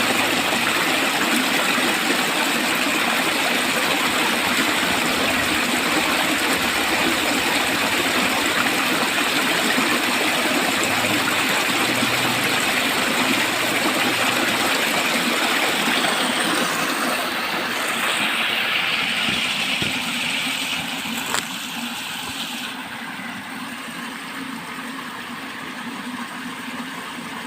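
Water rushing steadily along a channel, a dense, even rush. It grows quieter about two-thirds of the way through, with one sharp click shortly after.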